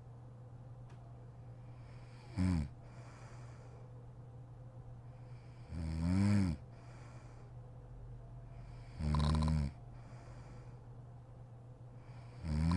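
A woman snoring in her sleep: a loud pitched snore about every three and a half seconds, four in the stretch, each rising and then falling in pitch. A steady low hum runs underneath.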